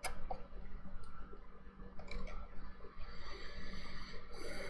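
Faint clicks and small handling noises while notes are being looked through: a sharp click right at the start, a few more about two seconds in, and light ticking near the end, over a steady low hum.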